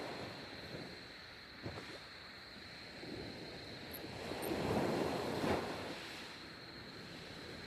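Sea waves washing against the shore with wind buffeting the microphone, swelling into one louder surge about five seconds in.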